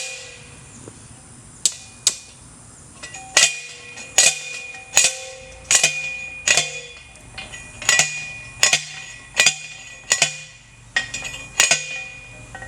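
Repeated hammer blows: about fourteen sharp strikes, each with a short metallic ring, coming roughly one every three-quarters of a second with a few short pauses.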